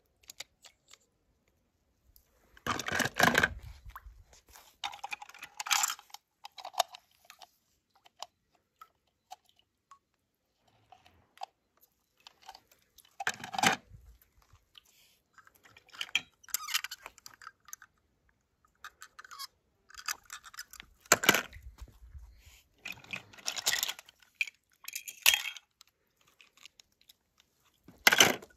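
Toy cars being handled and pushed over a rough surface: scattered scrapes, clicks and crunches, in short clusters a few seconds apart.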